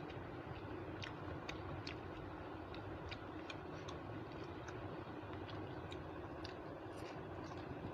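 Eating by hand: a person chewing rice and mixing it on a plate with her fingers, giving faint, irregular small clicks, a few a second, over a steady low hum.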